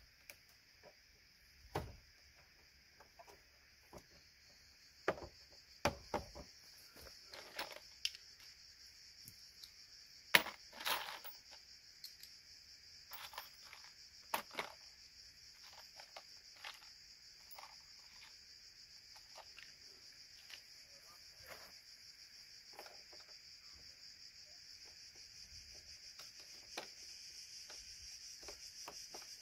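Scattered clicks, taps and knocks of hand tools and parts being handled on a car's front radiator, AC condenser and cooling-fan assembly, the loudest pair about ten seconds in. Under them runs a steady high insect drone.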